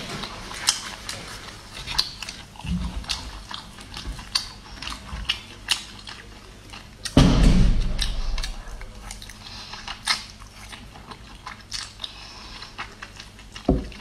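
Close-up eating sounds: spicy instant noodles slurped and chewed, with many small wet mouth clicks. One loud slurp about a second long comes about seven seconds in.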